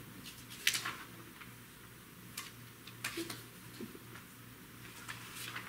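Loose sheets of paper being shuffled and handled: a few short, crisp rustles and taps at irregular moments, the loudest about a second in, over a faint steady low hum.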